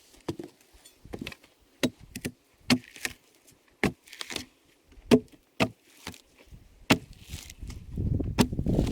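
Tool chopping and striking the thick, furrowed bark of an ironbark log, in irregular sharp blows about one or two a second, some followed by a short tearing rasp as bark splits away. A low rumble comes in about two-thirds of the way through and grows louder.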